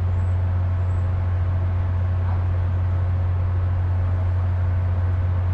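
Diesel locomotive idling: a steady, unchanging low drone with a faint steady whine above it.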